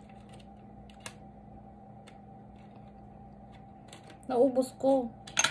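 A few light, sharp clicks of a clear plastic sushi takeout tray being handled, over a steady low hum. Near the end, a short two-syllable murmur from a voice.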